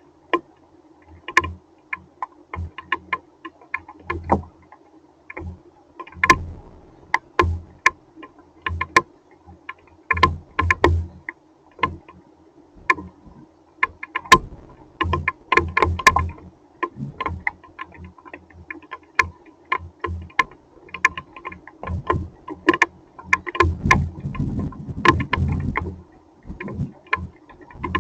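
Rain and hail striking a hard surface in irregular sharp ticks, many with a low thump, over a faint steady hum.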